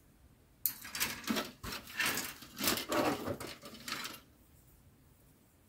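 Plastic model-kit sprues rattling and scraping against one another as they are handled: a burst of irregular clattering and rustling that starts just under a second in and lasts about three and a half seconds.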